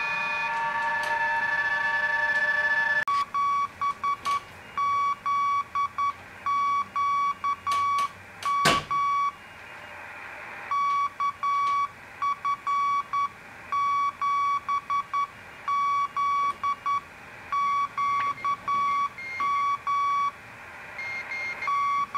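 Icom IC-S700 HF transceiver's speaker receiving amateur signals: first several steady digital-mode tones on 14.070 MHz, then, about three seconds in, a Morse code (CW) signal, one beeping tone keyed on and off in dots and dashes. A single sharp crack of static comes just before the middle.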